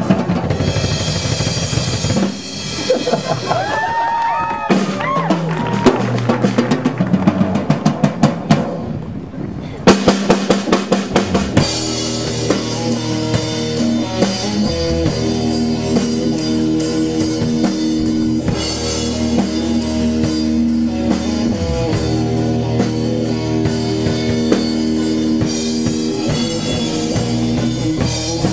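Rock drum solo on a Sonor acoustic drum kit: fills across snare, toms, bass drum and cymbals, a run of quick strokes building up, a brief break, then loud accented hits. About twelve seconds in, the full band with electric guitar and bass comes back in under a steady rock beat.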